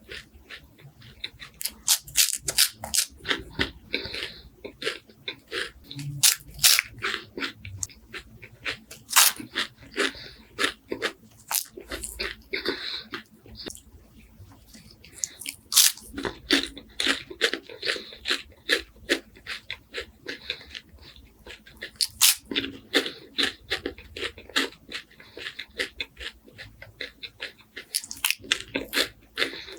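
Close-miked crunching and chewing of crispy wafers: clusters of sharp crunches with wet mouth sounds in between and short pauses between bites.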